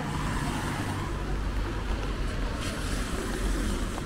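Traffic on a rain-wet street: a car driving by, its tyres hissing on the wet road, over a steady low rumble.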